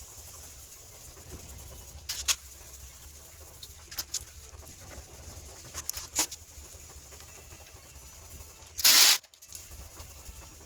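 Hand sanding with 2000-grit sandpaper: a few short, scattered rubbing strokes, then one louder hiss about nine seconds in.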